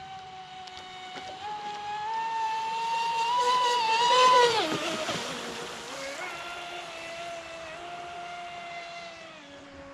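ProBoat Impulse 32 radio-controlled boat's brushless electric motor whining at speed as the boat runs past: the whine grows louder, peaks a little over four seconds in, then drops sharply in pitch and fades as the boat moves away.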